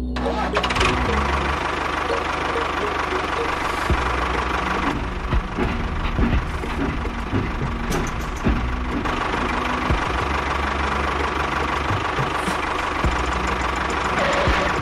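Small electric motor of a battery toy vehicle running steadily with a whine and a rapid rattling clatter.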